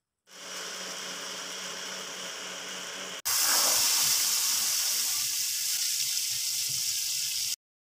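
An electric blender runs with a steady motor hum for about three seconds. Then comes a sudden change to the louder, hissing sizzle of chili paste frying and bubbling in oil in a pan.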